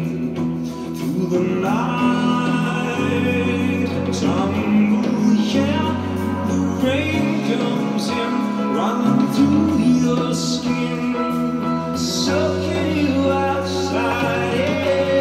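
Live synth-pop recording playing: a male lead vocal sings a melodic line over held bass and keyboard chords that change every few seconds.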